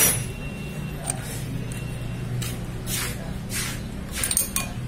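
Sharp metallic click, then scattered short clinks and scrapes as a nut on a gearbox casing is turned by hand and then with an open-end spanner, over a steady low hum.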